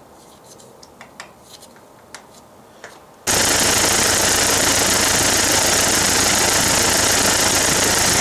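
IH 354 tractor's four-cylinder gas engine running to warm up before a valve lash adjustment, with the valve cover off so the rocker arms and valve train clatter rapidly and loudly. It starts abruptly about three seconds in and cuts off sharply at the end; before that there are only faint clicks.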